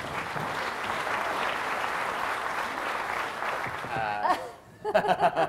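Theatre audience applauding, stopping about four seconds in; a voice and then speech start near the end.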